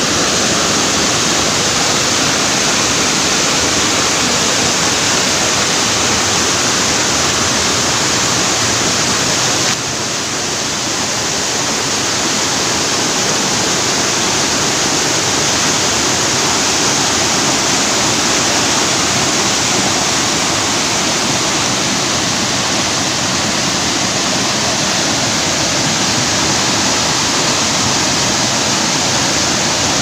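Small waterfall pouring over layered rock into a pool: a steady rush and splash of water, dipping slightly in level about ten seconds in.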